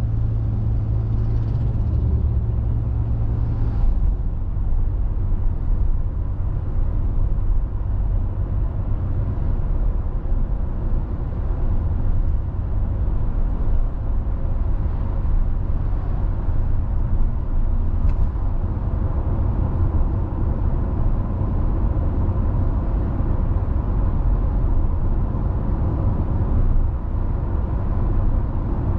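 Car driving at a steady pace: a continuous low rumble of engine and tyres on the road.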